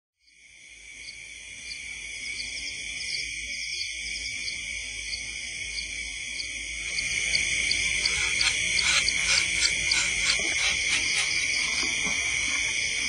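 Chorus of insects: several steady high-pitched drones fading in, with quick repeated chirps over them that grow louder and busier about halfway through.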